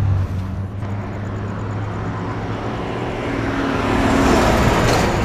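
Street traffic: a motor vehicle passing close over a steady low rumble, its rushing noise swelling to its loudest about four seconds in and then easing.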